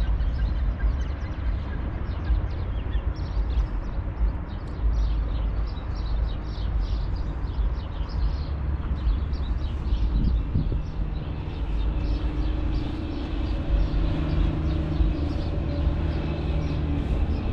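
Outdoor traffic rumble, low and steady, with short high ticks scattered through it. About twelve seconds in, a steady engine drone joins for several seconds.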